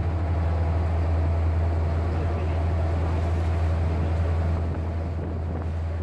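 Tour boat's engine running with a steady low drone, with water rushing past the hull and wind on the microphone; the sound eases slightly near the end.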